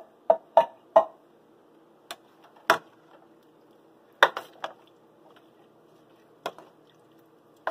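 A spoon knocking against the pot as chickpeas are stirred into a thick tomato sauce: irregular clinks, three quick ones in the first second and more a second or two apart after that.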